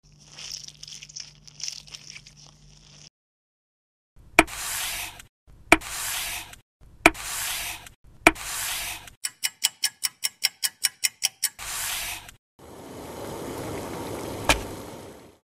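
Silicone rolling pin rolling over soft dough on a wooden board, then a knife cutting the dough into strips in four strokes, each a sharp tap followed by about a second of scraping. A quick run of about a dozen light ticks follows, then one more stroke. A steady hiss with a single click in it fills the last few seconds.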